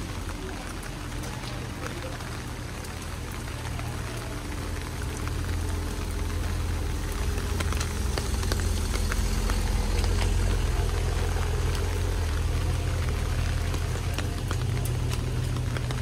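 Rain falling, with scattered drop ticks, over a low rumble that builds about five seconds in and eases near the end.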